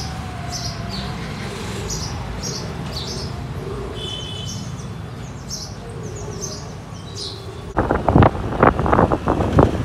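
Small birds chirping over and over, about two short high chirps a second, over a steady low rumble. About eight seconds in this gives way suddenly to loud, irregular thumps and rushes of noise.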